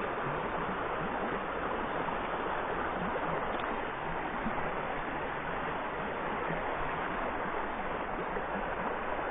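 Steady rush of a shallow river's flowing water.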